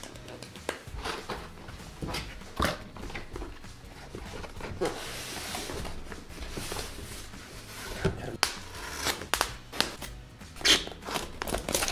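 Styrofoam packing shell being pulled out of a cardboard shipping box and handled: a rubbing, rustling stretch as it slides out, then a series of short sharp knocks and creaks as it is set down and gripped.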